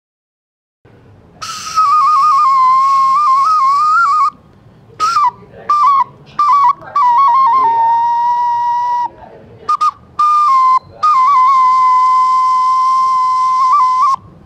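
A small wind instrument held cupped in both hands at the mouth, played as a clear, flute-like melody. It moves in quick trills and ornaments between longer held notes, in several phrases with short breaks.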